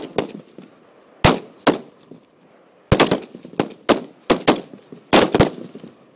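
Rifle shots from several shooters on an outdoor firing line, sharp cracks at uneven intervals, about a dozen of them, with a short lull before the firing picks up again around three seconds in.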